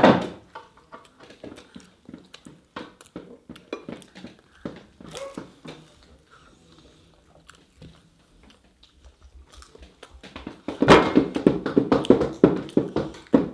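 Children chewing and eating, with small mouth clicks and light knocks. About eleven seconds in, a child's voice starts up loudly for a couple of seconds, unclear as words.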